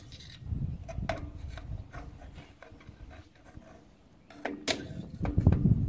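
Drum brake hardware being worked by hand and with pliers: scattered metal clicks, scrapes and knocks as a spring or clip is fitted, with the heaviest knocks near the end.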